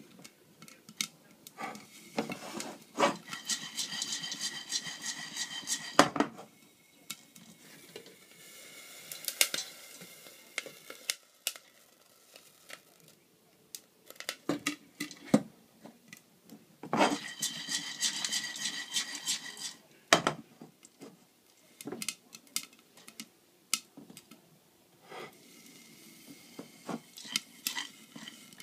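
A metal saucepan and its lid clattering and scraping on an electric stove, with many scattered clicks and knocks. There are two stretches of ringing metal, about three seconds in and again about seventeen seconds in.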